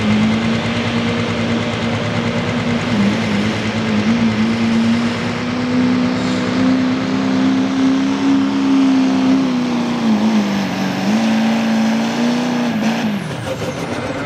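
Chevrolet Silverado 2500HD's Duramax turbo-diesel engine at full throttle, pulling a weighted sled: its pitch is held high and steady with two brief dips, then drops as the throttle is let off near the end of the run.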